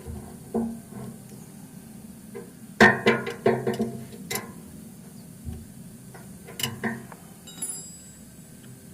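Sharp metal clicks and clinks of a 12 mm wrench snugging an engine oil drain plug back in: a quick run of clicks about three seconds in, and a few more near two-thirds of the way through.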